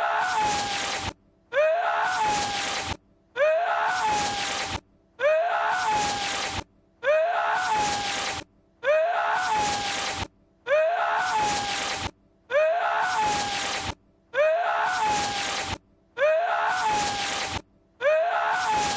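Lord Voldemort's voice clip, a short strained cry that sounds like a sneeze, looped over and over with no change. Each repeat is a rising yelp that levels off into a held note, followed by a brief silence, and it recurs about ten times, roughly every two seconds.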